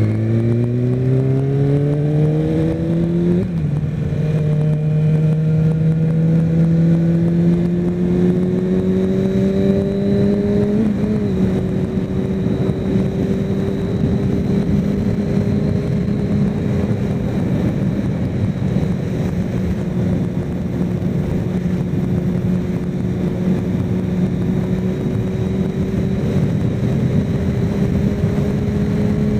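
Kawasaki Ninja ZX-6R's inline-four engine accelerating with its pitch climbing, dropping sharply at an upshift about three and a half seconds in. It climbs again more slowly, shifts once more about eleven seconds in, then holds a steady cruise under a constant rush of wind noise.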